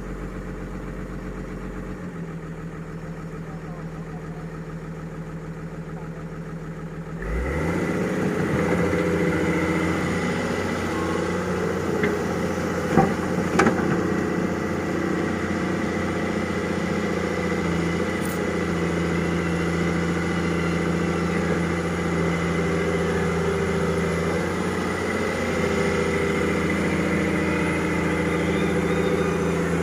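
Excavator engine idling low, then revving up about seven seconds in and running steadily at higher speed. A few short knocks come around the middle.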